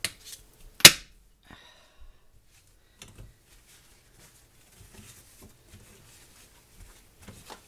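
Paper towel rustling as it is wiped over a towel-covered stovetop, with soft scattered handling ticks and one sharp click about a second in.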